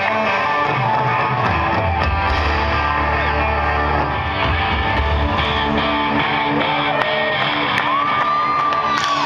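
Live rock band with electric guitar playing through a stadium PA, heard from inside the crowd. Heavy bass notes sound in the first half, and near the end a high note slides up and is held.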